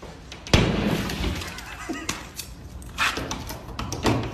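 Drywall being smashed through from the other side of a wall: a hard blow about half a second in, then more knocks and cracking with crumbling board.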